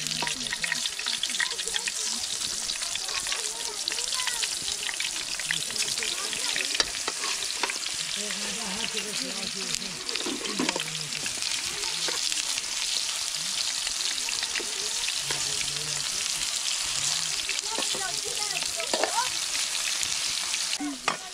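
Vegetable slices frying in hot oil in a metal pan over a wood fire: a steady crackling sizzle, with occasional knocks and scrapes of a metal ladle turning them in the pan.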